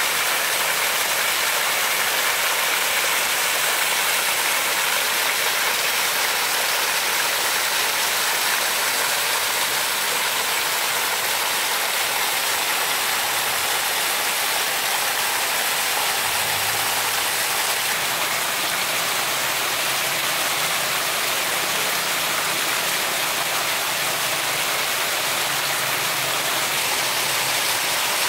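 Heavy rain pouring steadily onto tree leaves and a grass lawn, a dense even hiss. A faint low hum joins in a little past the middle.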